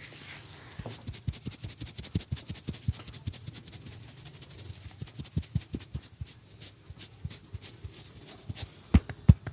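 Hands working on skin during a massage: a fast run of light pats and rubbing, turning near the end into louder, regular slaps about three a second.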